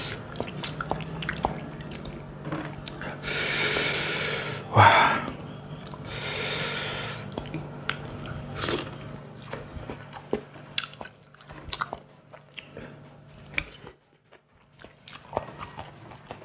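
Close-up eating sounds of a person chewing and biting fried tilapia: many small wet clicks and smacks, with two longer breathy hissing sounds and a louder short sound in the first half.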